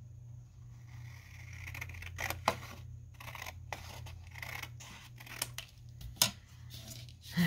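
Cardstock being handled and shuffled at a craft desk: soft paper rustling, with several short sharp clicks and taps of paper and tools, over a steady low hum.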